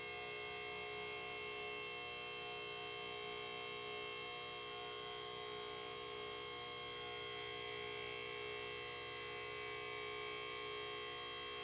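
MaxJax two-post car lift's electric hydraulic power unit running with a steady hum as it raises a car.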